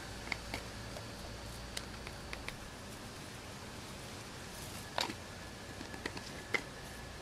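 Red pepper flakes shaken from a spice jar into a plastic zip-top bag of marinade: faint scattered clicks and rustling of the bag, with the loudest tap about five seconds in.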